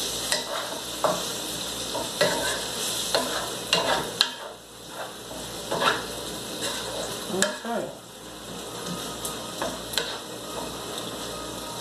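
Wooden spoon stirring vegetables in a skillet over a gas burner: irregular scrapes and knocks of the spoon against the pan over a steady sizzle of the frying food.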